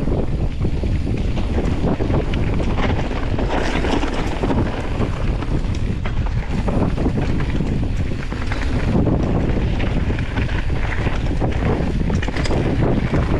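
Mountain bike running fast down rough dirt singletrack, its tyres rumbling and the bike rattling with many small knocks over the ground. Heavy wind buffets the microphone throughout.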